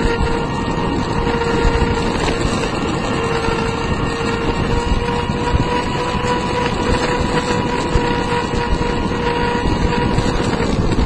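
Home-built electric longboard rolling fast over asphalt: a steady roar from the wheels on the road, with a steady whine from the electric drive running through it and wind buffeting the microphone.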